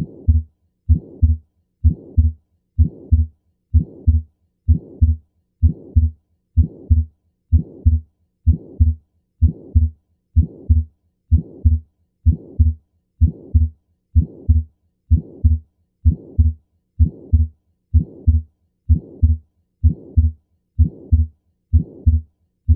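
Auscultated heart sounds of pulmonic stenosis, a steady rhythm a little faster than one beat a second. Between the first and second heart sound of each beat runs a harsh mid-systolic murmur, the sign of blood forced through a narrowed pulmonary valve.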